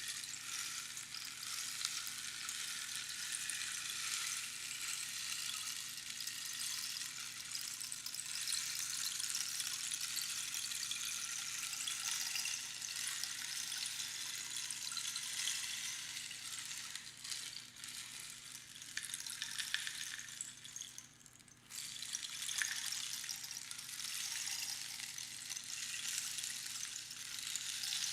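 Rainstick: small pebbles trickling down through the pins inside the hollow tube, a continuous fine pattering hiss like falling rain. About 21 seconds in, the flow nearly stops for a moment, then starts again.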